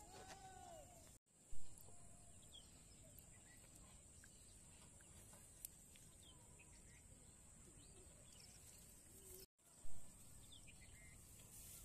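Faint outdoor ambience with scattered small bird chirps over a steady high-pitched hiss. Twice, once about a second and a half in and again near the end, the sound cuts out for a moment and is followed by a brief loud burst.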